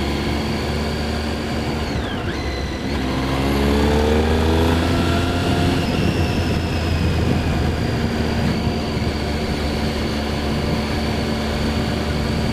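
Triumph Street Triple 675's inline three-cylinder engine under way: its note dips about two seconds in, climbs as the bike accelerates and breaks at a gear change near the middle, then holds steady, over a steady low rumble.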